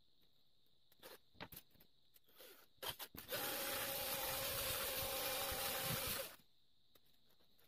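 A cordless drill spins a small brass wire brush against a screw for about three seconds, a steady motor whir under a scrubbing hiss that stops abruptly. Before it there are a few light clicks and scrapes as the drill and screw are handled.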